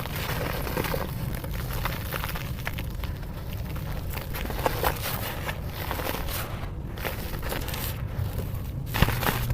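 Dry dirt being crushed and crumbling: a continuous gritty crackle and crunch, with a sharper snap about halfway through and another near the end.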